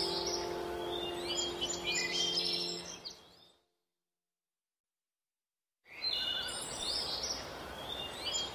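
Songbirds chirping and twittering in quick high calls over a steady hiss, with a held music chord fading out underneath. Everything cuts to dead silence about three and a half seconds in, and the birdsong comes back about two seconds later.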